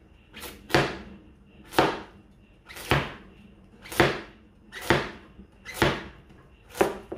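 Broad-bladed kitchen knife slicing a carrot into rounds on a wooden cutting board: a sharp knock each time the blade comes down on the board, about once a second.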